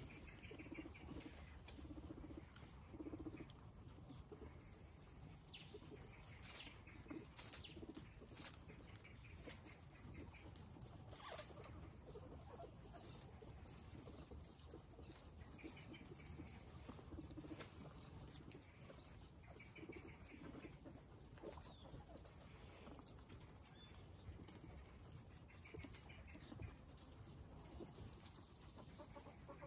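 A herd of guinea pigs feeding on fresh grass and carrot pieces: faint chewing and rustling in the straw, with scattered small clicks and a few short, soft calls.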